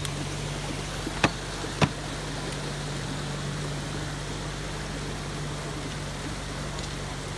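A steady low motor hum over a noisy outdoor background, with two sharp clicks about a second and two seconds in.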